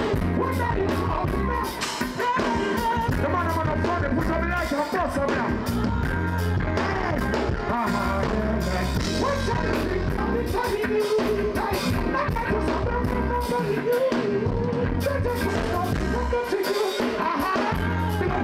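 Live reggae music: a band with a heavy, steady bass line under a male vocalist singing and chanting into a microphone.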